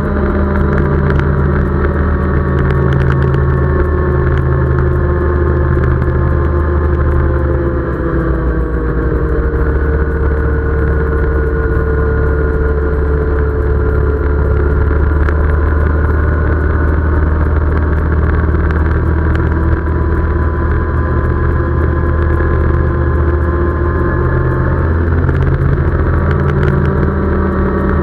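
Off-road vehicle engine running steadily at cruising speed on a paved road, its pitch easing down and back up a little as speed changes.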